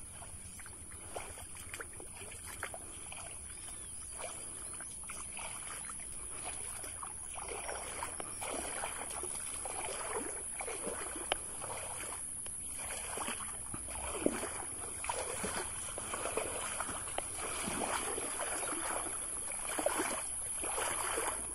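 A person wading through shallow floodwater and thick water weeds, legs pushing through the water and plants in irregular swishing splashes that grow louder and more frequent after the first several seconds. A steady high-pitched whine runs underneath.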